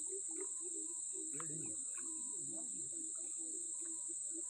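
A chorus of night insects, mostly crickets, making a steady high-pitched drone. A faint low call repeats about four times a second underneath.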